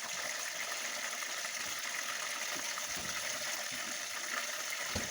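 Frozen mixed vegetables and garlic sizzling steadily in hot oil in a frying pan, with a couple of faint knocks from the pan.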